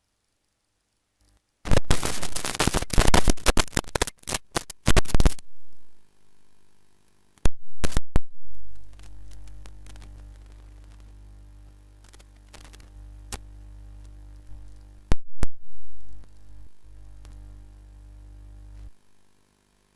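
Loud crackling static for a few seconds, then sharp clicks and a steady low electrical hum with faint held tones underneath, which cuts off near the end.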